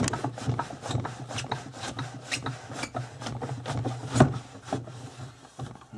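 Wooden hide breaker in use: its hinged toothed wooden bar is worked down again and again onto a folded dressed goat skin in the toothed slot, giving quick rubbing, scraping strokes and wooden knocks, about three a second, with one louder knock a little after four seconds. This is the softening (breaking) of the skin, the final stage of dressing a hide.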